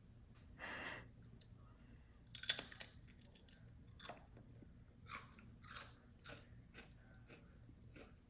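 A garlic aioli chip being bitten and chewed, a run of irregular crisp crunches, the loudest about two and a half seconds in, growing fewer and fainter toward the end.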